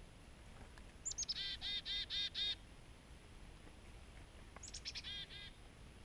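Chickadee giving its chick-a-dee call twice: a few high, quick opening notes followed by a run of about six rapid repeated lower 'dee' notes, the second call, near the end, shorter.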